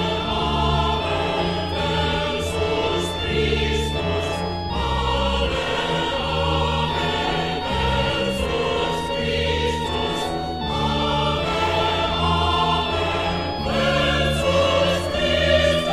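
Dramatic choral music: a choir singing sustained chords over an orchestra, with a low bass line moving note by note.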